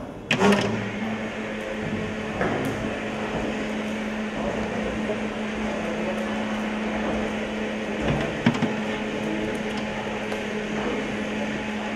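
A steady low mechanical hum over a bed of background noise, with a sharp metallic clink just after the start and another about eight and a half seconds in.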